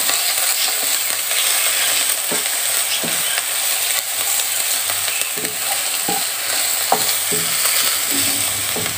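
Chopped ginger, green onion and green chilli being sautéed in oil in a non-stick wok, sizzling steadily while a wooden spoon stirs and scrapes through them, with occasional light knocks of the spoon against the pan.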